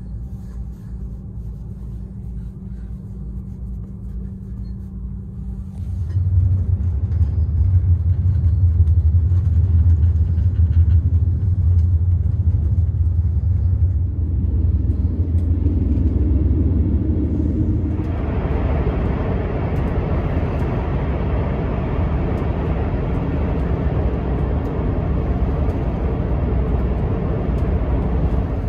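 Passenger train running, heard as a steady low rumble that steps up louder about six seconds in. About two-thirds of the way through, a broader rushing noise joins it and stays.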